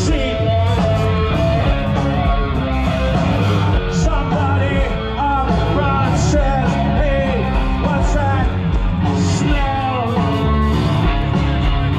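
Live rock band playing loud through an outdoor festival PA, with a singer's voice over the band.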